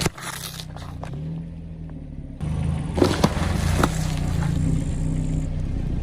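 Car engine running low as the car rolls over objects, with sharp cracks and crunches about three seconds in as things break under the tyres.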